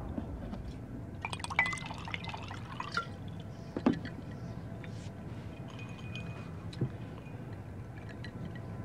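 Ice clinking in a drinking glass and light taps on a computer keyboard, a quick run of clicks with a short glassy ring, then a couple of single knocks, over a steady low room hum.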